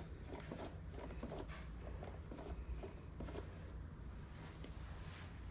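Faint scattered clicks and rustles of a hand handling a plastic toy puppy's ear, over a low steady hum.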